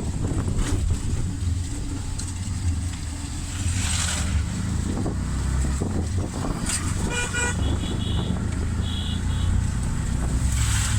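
Motor vehicle running on the road with a steady low engine and road rumble, and a vehicle horn honking about seven seconds in and again briefly a second or so later.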